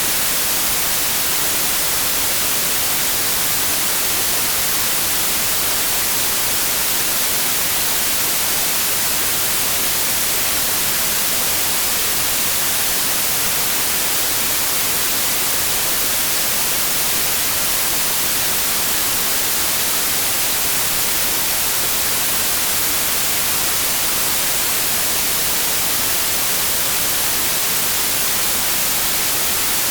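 Steady white noise, an even hiss brightest in the high treble, with no change in level.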